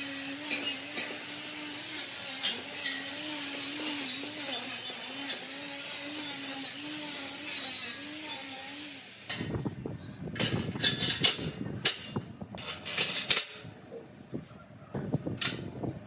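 A power tool runs with a steady whine that wavers slightly in pitch, then stops suddenly about nine seconds in. Irregular sharp knocks and clinks follow, like metal parts being handled and struck.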